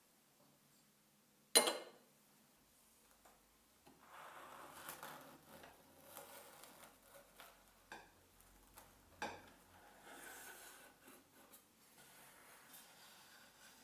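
Small handling sounds: one sharp knock, then soft rubbing and rustling with a few light clicks.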